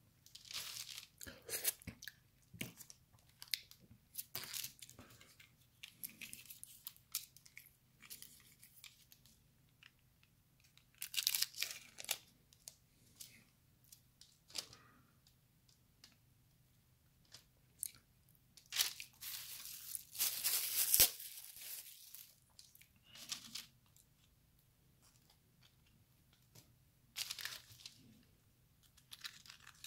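Crispy fried chicken breading crackling and tearing as pieces are pulled apart by hand, with crunchy chewing, in irregular bursts separated by pauses. The longest and loudest run of crunching comes about two-thirds of the way through.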